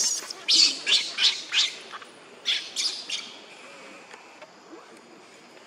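Baby macaque crying with short, shrill, high-pitched squeals repeated two or three times a second, which stop a little after three seconds in.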